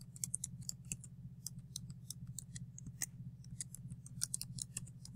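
Computer keyboard typing: a run of quick, irregular, faint keystroke clicks as text is entered, over a steady low hum.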